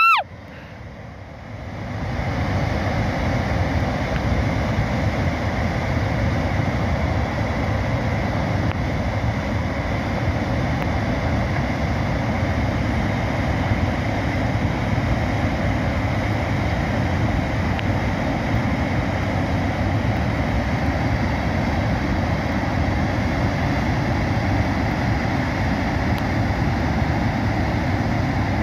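Mudflow of muddy water and boulders rushing down a mountain stream bed, a steady rushing noise that grows louder about two seconds in and then holds even.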